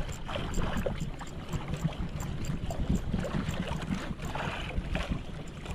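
Wind buffeting the microphone and choppy sea slapping against a small outrigger fishing boat, with a splash of water about four seconds in. A faint, fast, regular ticking runs underneath.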